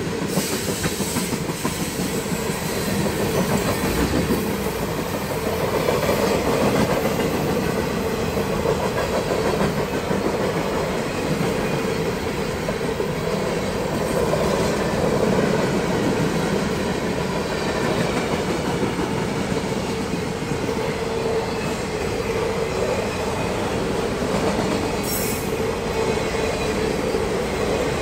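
CSX mixed freight train's cars rolling past at speed: steady rumble and clatter of steel wheels on the rails.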